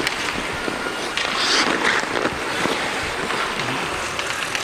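Sound of an ice hockey game in a rink: skates scraping across the ice and scattered clacks of sticks and puck, with a louder hissing scrape about a second in.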